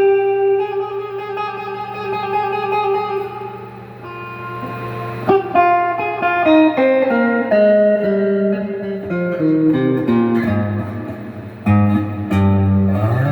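Donner DST200 electric guitar played through a Sonicake Blues Screamer pedal: a long held note ringing out, then a run of single notes stepping downward, with a slide up in pitch near the end.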